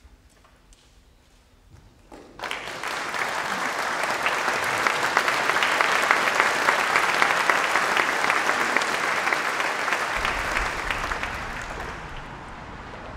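Audience applauding, breaking out suddenly about two seconds in, swelling and then fading near the end. A low rumble of road traffic comes in under it near the end.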